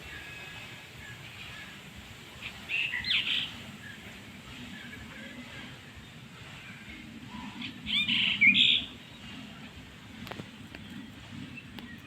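Kitten giving two short bursts of high-pitched squeaky mews, about three seconds in and again around eight seconds in.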